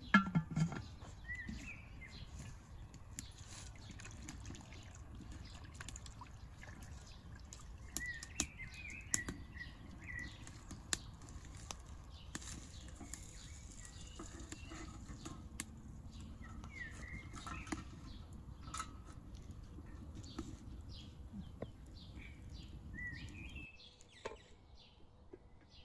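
Small birds chirping in short calls every few seconds over a steady low rumble of outdoor background, with scattered light clicks and a few knocks at the very start. The rumble cuts off suddenly about two seconds before the end.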